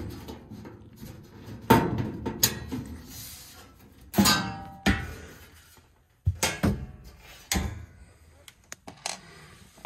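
Several sharp knocks and clanks of metal being handled on an old electric furnace's sheet-metal cabinet, spread through the stretch with quiet between them. The knock about four seconds in is among the loudest and has a short metallic ring.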